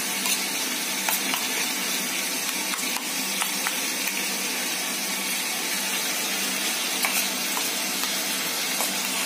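Yogurt marinade being mixed by hand in a small steel bowl: faint scattered clicks against the bowl over a steady hiss.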